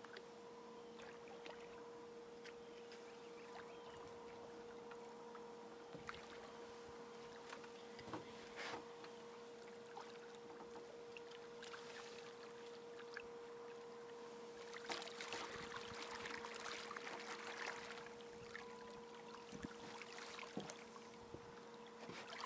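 Quiet water lapping against an aluminum jon boat hull under a steady faint hum, with splashing, knocks and rattles from about fifteen seconds in as a hooked fish is landed and flops on the boat deck.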